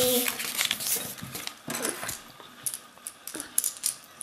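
Thin paper leaflet being unfolded and handled on a wooden tabletop: irregular crinkling and rustling with scattered small clicks and taps.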